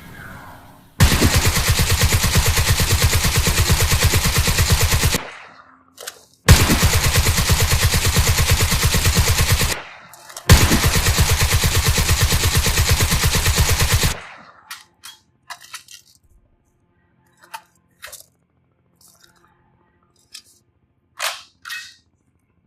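Mk 60 machine gun firing three long bursts of rapid automatic fire, each three to four seconds long with short pauses between. After the last burst come a few scattered short clicks.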